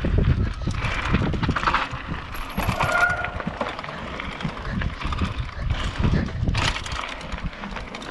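Downhill mountain bike running fast down a loose gravel trail: tyres crunching over stones and the bike rattling and clunking over bumps, with wind rumbling on the microphone. A brief high squeal about three seconds in.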